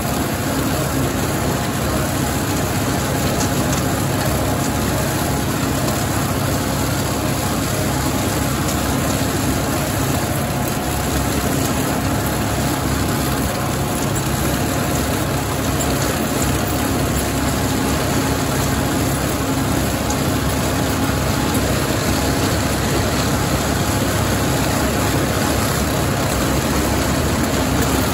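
John Deere 5045E tractor's three-cylinder diesel engine running steadily, driving a John Deere MX8 rotary cutter through tall weeds.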